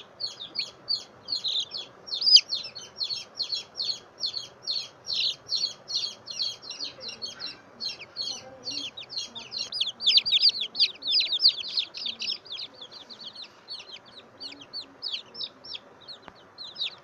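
Baby chicks peeping: a steady run of rapid, high, falling peeps, about four to five a second, crowding together and growing louder about ten seconds in.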